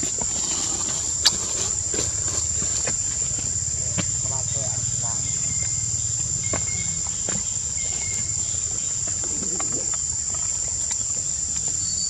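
A steady, high-pitched insect drone, with a low rumble beneath it. A sharp click about a second in, fainter scattered clicks, and three short faint peeps in the middle.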